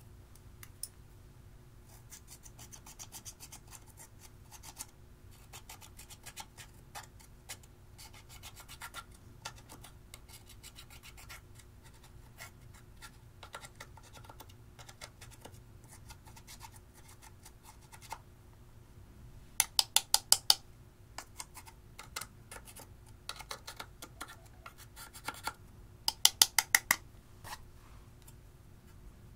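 A small metal tool scratching and scraping pressed eyeshadow out of a plastic palette's pans, the powder crumbling with fine gritty scrapes. Twice, about two-thirds of the way in and again near the end, comes a quick run of sharp taps, the loudest sounds here.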